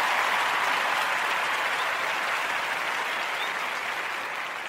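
Audience applause, a dense steady clapping that slowly fades and then cuts off suddenly at the end.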